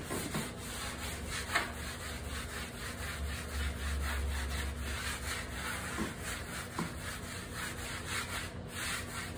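Felt chalkboard eraser scrubbed back and forth in quick repeated strokes over chalk smeared on a painted chalkboard wall, wiping the chalk in to season the new board to a gray chalkboard look.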